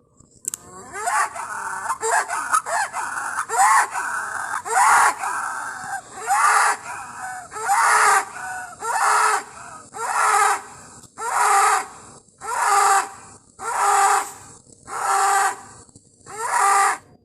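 Hippopotamus calling: a fast run of short calls, then a rhythmic series of about nine loud honks roughly one a second, which cuts off suddenly near the end.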